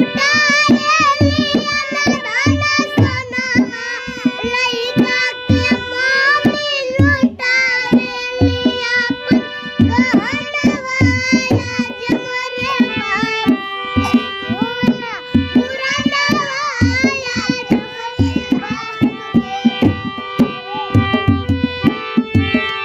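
Small harmonium playing sustained reedy notes while a young girl sings a folk song, over a steady hand-drum beat.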